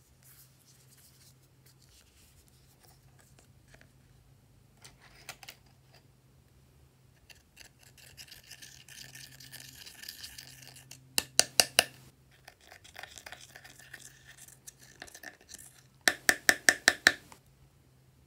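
Scissor tips scraping pressed eyeshadow out of a palette pan: a dry, scratchy scraping that comes twice, each time followed by a run of quick sharp taps, about five a little past halfway and seven or eight near the end.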